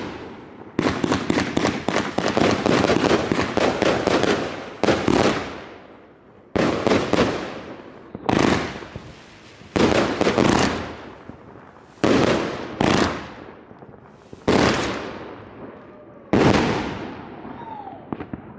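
A 153-shot consumer firework cake firing. A fast run of cracking shots lasts about four seconds, then single loud booms follow every second or two, each fading away.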